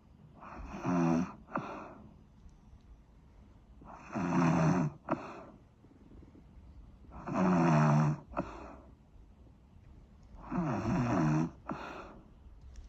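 Snoring: four snores about three seconds apart, each a rough pitched snore followed by a short, sharp click-like catch.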